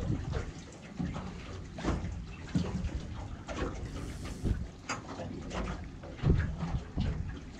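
Water slapping and lapping against a small boat's hull in irregular splashes on choppy water.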